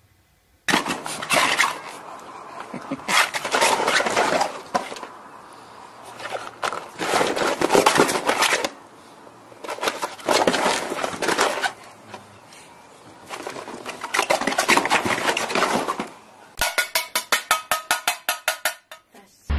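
Repeated bursts of clattering and rattling, hard objects knocked about. Near the end comes a quick run of about a dozen evenly spaced clicks, about five a second.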